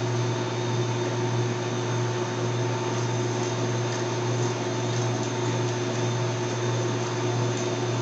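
Air conditioner condensing unit running steadily: a low compressor hum over condenser fan noise, as it pumps its R22 refrigerant down while the liquid line service valve is being closed.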